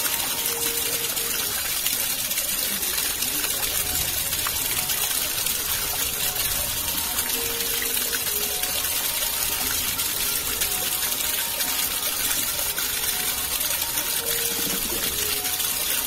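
Fast-flowing water gushing and splashing in a steady, unbroken rush.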